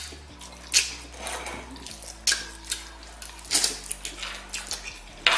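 Noodles being slurped and chewed wetly by two people eating, several loud slurps at uneven intervals.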